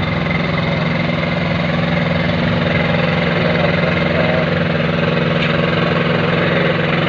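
Engine of a curb-stone making machine running steadily at an even pace, a constant low drone.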